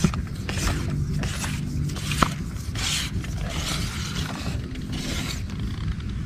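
Rustling and scraping handling noise from a fishing pole and gear being moved about, with a sharp click right at the start and another about two seconds in, over a low steady rumble.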